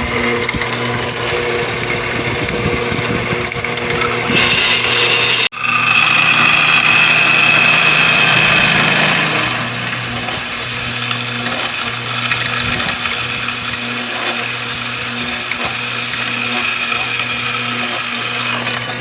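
Metal-cutting bandsaw running and cutting through steel stock: a steady motor hum under the high whine of the blade in the metal. The sound breaks off sharply for a moment about five and a half seconds in, and the whine is strongest just after.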